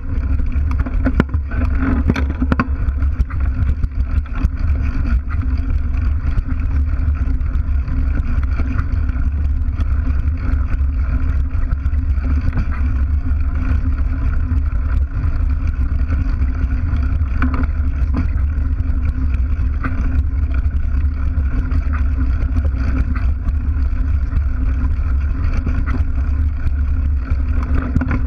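Mountain bike riding over asphalt and then cobblestones, picked up by a camera mounted by the rear wheel: a steady low rumble from the knobby tyre and the ride, with frequent small knocks and rattles from bumps.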